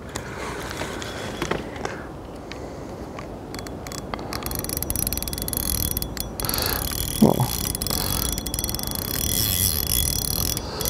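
Spinning feeder reel being cranked as a hooked carp is played in, its gears whirring with rapid fine clicking; the reeling sets in and grows louder about three and a half seconds in.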